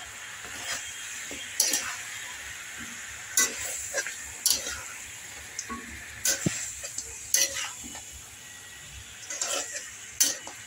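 Chicken pieces and spices sizzling in hot oil in a pan while a spatula stirs them, scraping and knocking against the pan again and again: the chicken is being lightly fried with its masala.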